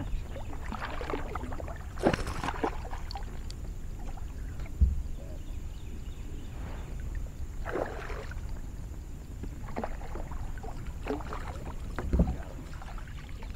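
A hooked bass splashing at the water's surface in several short bursts as it is fought in beside a kayak, over a steady low rumble. A single dull knock comes about five seconds in.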